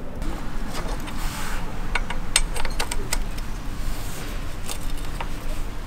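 Scattered light metallic clicks and clinks of a motorcycle footpeg and its return spring being handled and fitted, over a steady low background rumble.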